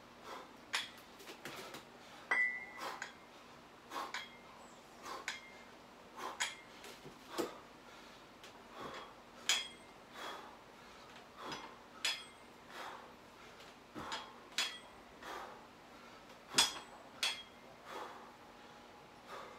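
Plate-loaded 25 lb dumbbells clinking and rattling, their metal plates knocking against each other in sharp, ringing clicks about once or twice a second as they are pressed, squatted and deadlifted through repetitions.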